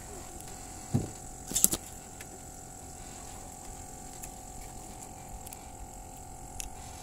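A boat's motor humming steadily, with a low thump about a second in and a few sharp clicks just after, and one more click near the end, as a hooked fish is handled and unhooked by hand.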